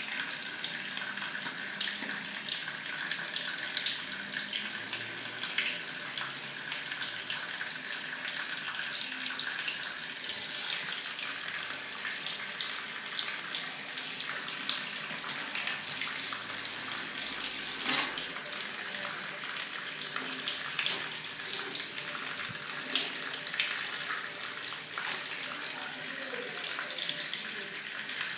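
Water running steadily from a tap in a tiled bathroom, with a few short clicks and knocks over it.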